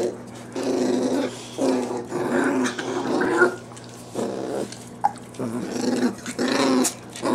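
Boxer puppies play-growling in a string of short, rough growls as they mouth and tug at a person's foot and sandal.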